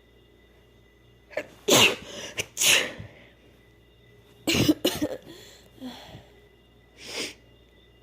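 A woman sneezing: a quick pair of sneezes about two seconds in, another pair of sneezes near the middle, and a weaker burst near the end.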